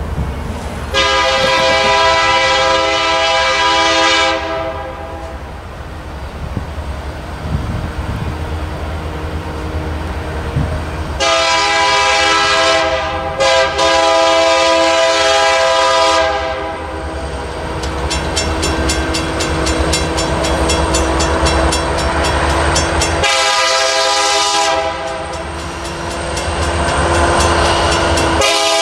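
Diesel locomotive horn on the lead Norfolk Southern SD60M of an approaching loaded rock train, blowing a series of chime blasts of two to three seconds each, the last still sounding at the end. Between blasts the locomotives' diesel engines rumble and the wheels click over the rail.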